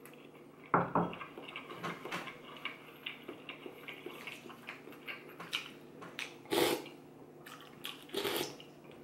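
A person eating noodle soup: slurping noodles and broth off a spoon, with chewing and wet mouth sounds between. There are a few louder slurps, one about two-thirds of the way through and one near the end.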